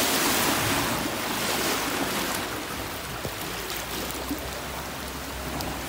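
Floodwater rushing and splashing as a car drives through a flooded street, pushing a wave along. Rain is falling. The rush is loudest at the start and eases off over the next few seconds.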